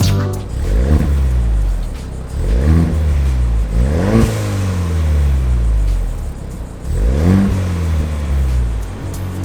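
2021 Ford Bronco Badlands engine breathing through an XForce Varex valved catback exhaust, revved about four times, each rev climbing and dropping back to idle.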